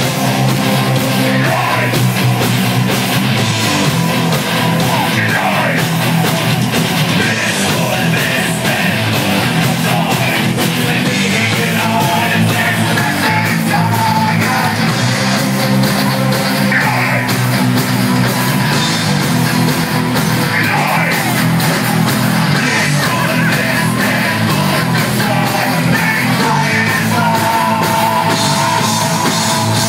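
Live heavy-metal band playing loudly and continuously, with distorted guitars and yelled vocals.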